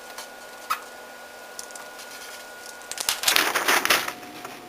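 Pencil scribbling on paper: a few faint ticks, then a burst of scratchy noise lasting about a second near the end.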